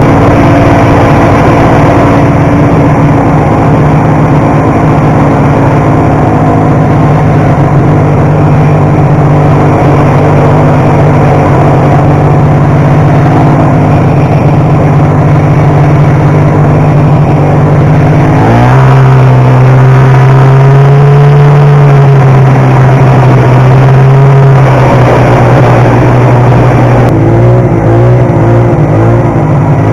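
1972 Ski-Doo TNT 440's two-stroke twin engine running under way, loud and steady. About two-thirds of the way through its pitch jumps up as the throttle opens, then eases back and wavers with throttle changes near the end.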